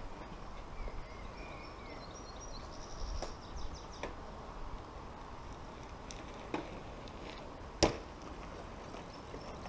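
Quiet background with a few light clicks and knocks, the sharpest nearly eight seconds in, and faint high chirps in the first few seconds.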